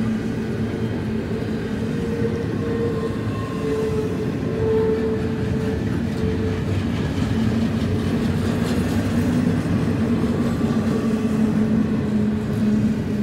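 Double-stack intermodal freight cars rolling slowly past on a curve: the steady noise of steel wheels on rail, with a faint steady hum underneath that drops lower in pitch about halfway through.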